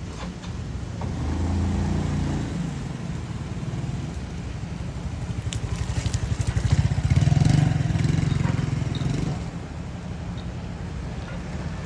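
Motorbike engine passing by, its low rumble swelling to loudest a little past halfway and then fading, after a quieter vehicle swell about two seconds in.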